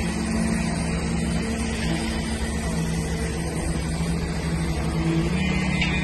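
Heavy diesel truck engines running steadily, a low hum that steps slightly up in pitch about five seconds in.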